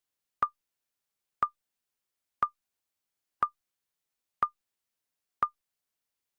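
Countdown timer sound effect: short electronic ticks, one a second, each a click with a brief high beep, six in all.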